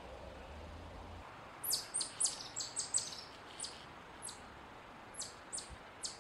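Eastern chipmunk giving its high, sharp chip call: a quick run of about a dozen chips starting near two seconds in, then slower, spaced-out chips.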